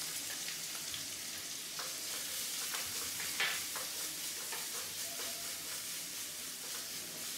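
Chopped onions with garlic, ginger and curry leaves sizzling steadily in hot oil in a nonstick kadai, stirred with a wooden spatula that gives a few light knocks against the pan.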